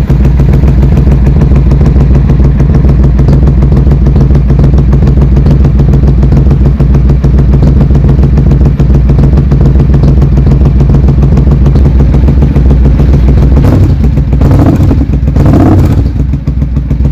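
1990 Suzuki Intruder VS750's V-twin engine idling steadily through its exhaust with an even, low pulsing beat, with two short bursts of louder noise near the end.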